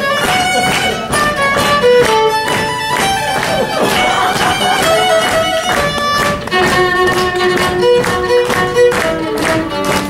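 Violin bowed in a lively run of separate notes, moving to held two-note double stops from about six and a half seconds in.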